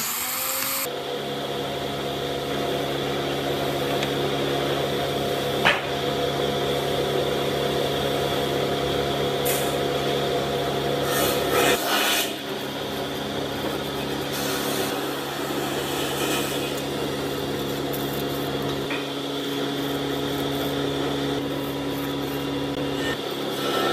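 Angle grinder fitted with a sanding disc, its motor running at a steady pitch as the disc sands a pine board. The same steady machine hum carries on throughout, with a few short scratchy rubs on wood.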